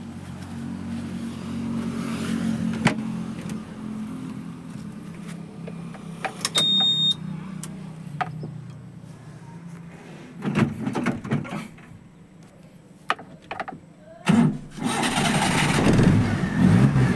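Maruti Suzuki Omni van being started: clicks and knocks at the driver's seat and ignition, a short high beep about seven seconds in, then near the end the engine, running on LPG, cranks, catches and keeps running.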